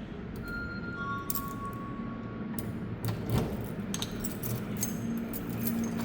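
Keys jangling and clicking in a door lock as a key is worked back and forth, the lock not yet turning. Some brief steady tones sound among the clicks.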